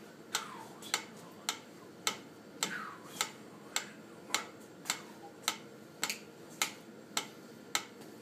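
Metronome ticking steadily at about 100 beats per minute, a little under two sharp clicks a second.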